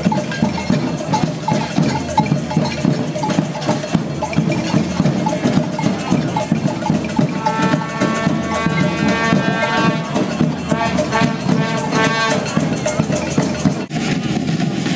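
Protest percussion: drums and cowbell-like metallic clatter over the hubbub of a crowd. About halfway through, a held pitched tone sounds for a few seconds and then wavers. The sound breaks off abruptly near the end.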